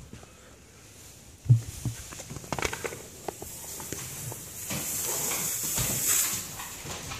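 A plastic dog-door flap being pushed open with one sharp thump, then knocking and clicking as it swings, followed by a steady rustling scrape as the flap rubs over the hand and phone pushed through it.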